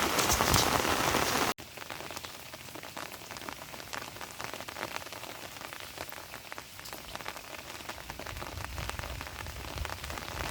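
Heavy rain falling, then a sudden cut about a second and a half in to softer rain, with many separate drops striking.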